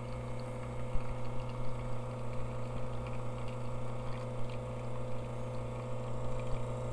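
Lelit espresso machine's pump humming steadily as it pushes water through the puck at about 9 bar during a shot.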